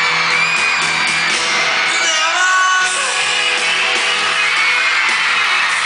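Live pop-rock band with electric guitars playing in an arena, with a crowd of fans screaming and cheering loudly over it.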